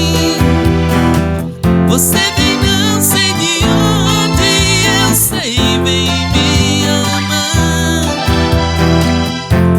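Music: a song with a singing voice over instruments, playing loudly and continuously.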